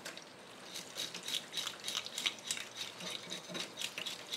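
Metal fish-scale scraper rasping against the skin of an arakabu (marbled rockfish), stripping off its scales in quick strokes, about three or four a second, over a faint hiss of tap water running into a steel sink.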